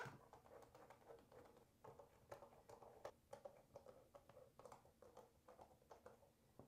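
Faint scattered clicks and light taps of a precision screwdriver working T8 Torx screws out of a smart speaker's plastic back housing.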